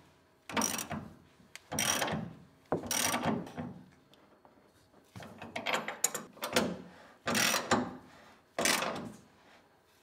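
Socket ratchet wrench clicking in short strokes as it tightens the rear leaf-spring shackle nuts on a Ford Bronco, about seven bursts with brief pauses between them.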